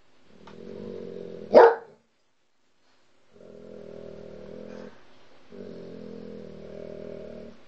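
A dog growling in three long low stretches, with one sharp bark about a second and a half in.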